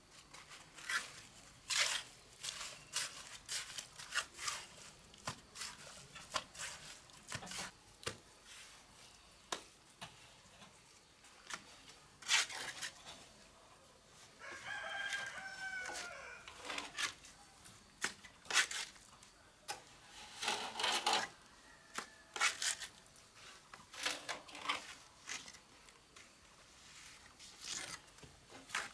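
Cement-plastering work on a brick bank: a string of sharp taps and scrapes from a trowel on bricks and mortar. A rooster crows once, about halfway through.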